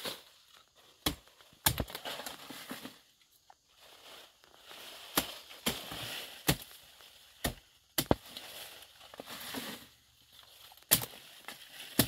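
A blade chopping at plant stems in a thicket: about eight sharp, irregularly spaced strokes, with leaves and stalks rustling and crackling between them.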